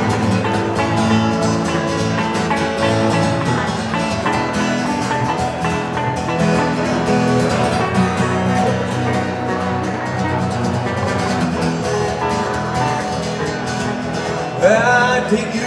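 Two guitars, an acoustic cutaway guitar and an archtop guitar, strumming and picking an instrumental break together. A man's voice comes in briefly near the end.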